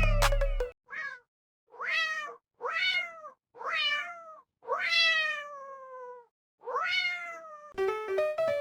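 A cat meowing repeatedly, about six meows roughly a second apart, each falling in pitch; the fifth is drawn out longest. Background music is under the first meow and starts again near the end.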